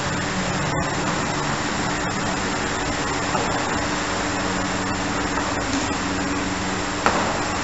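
Steady background hum and hiss of room noise, with a low steady drone throughout and one short click near the end.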